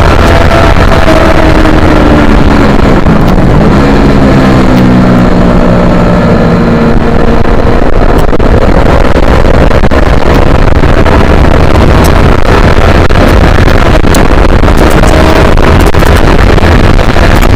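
Yamaha R3's parallel-twin engine running under heavy wind noise on the microphone. The engine note drops about three seconds in, then climbs slowly and steadily as the bike gathers speed.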